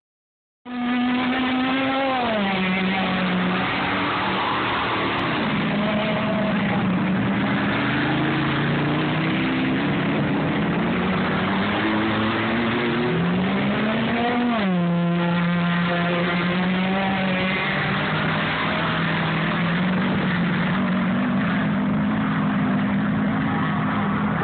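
A vehicle engine running with its revs changing. Its pitch drops near the start, wanders, climbs again about halfway through, then falls back and holds steady.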